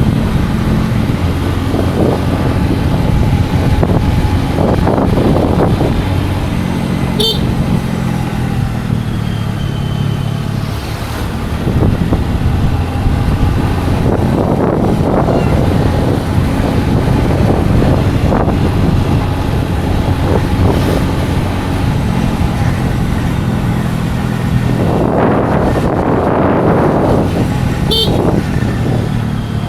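Scooter engine running steadily under way, with road and wind noise. Two short high toots about 7 s in and near the end, and a passing rush of noise a few seconds before the end.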